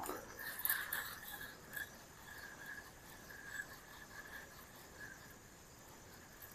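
Faint forest ambience: an insect chorus pulsing unevenly. A short falling sound and a cluster of brief clicks and scrapes come in the first second and a half.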